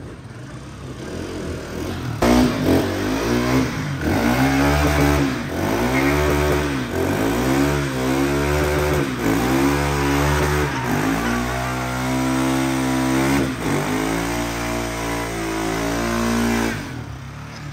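Motorcycle engine revved hard during a burnout, the rear tyre spinning and smoking. From about two seconds in the revs rise and fall about once a second, then are held high for several seconds and drop away near the end.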